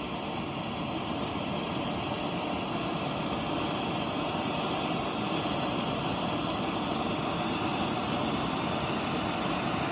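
Small portable torch burning steadily with an even rushing roar while it heats a metal punch red hot, ready to melt holes through carpet.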